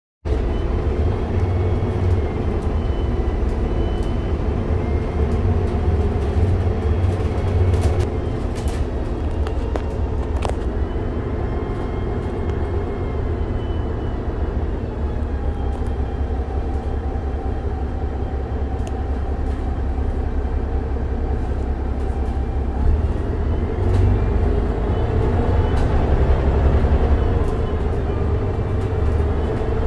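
Mercedes-Benz O405NH Midi bus with a Voith automatic gearbox under way: a steady low engine rumble with a faint gearbox whine that rises in pitch about halfway through and again near the end. A few sharp clicks or rattles sound a little after a quarter of the way in.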